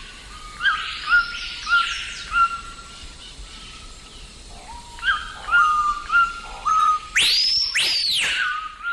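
Whistled bird calls: two runs of short, clipped notes about half a second apart, then two loud arching whistles that rise and fall near the end.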